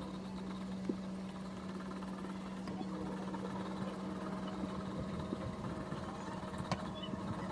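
A steady low mechanical hum with a few light clicks and taps.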